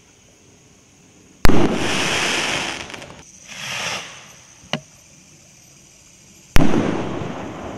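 Black Gemini firework rockets: a sharp bang about a second and a half in as a rocket bursts, followed by a couple of seconds of hiss and crackle. Then the rising and fading whoosh of the next rocket climbing, a small pop, and a second burst bang near the end with a trailing crackle.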